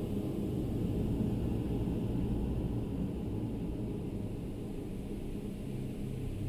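Dark ambient drone: a steady low rumble with a faint hiss above it, without a beat or a clear melody.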